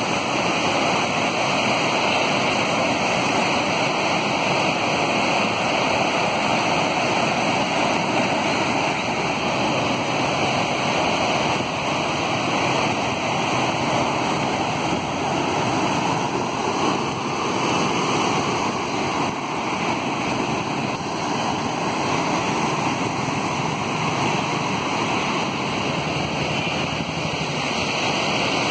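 Rough sea surf breaking onto a rocky shore: a steady, loud rush of churning water.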